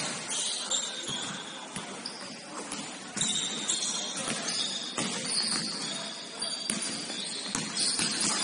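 Basketball game on a hard court: the ball bouncing repeatedly, mixed with short high-pitched squeaks of shoes on the floor and faint voices.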